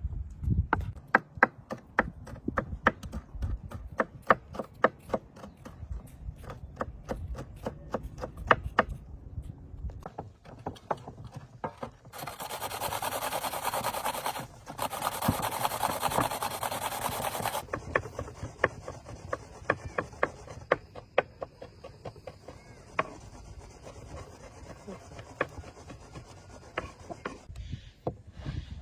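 Hand food preparation on a wooden surface: short rubbing, scraping strokes repeat about two to three times a second. About halfway through, a steady hissing rush lasts some five seconds, with one short break, then cuts off.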